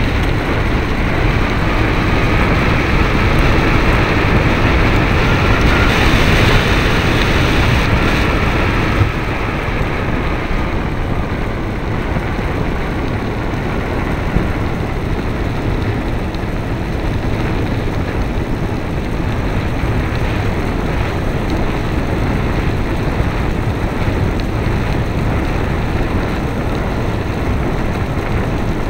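Wind rushing over the microphone of a bicycle-mounted camera while riding, a steady noisy rumble. It is louder and brighter for the first nine seconds or so, then eases to a lower steady rush.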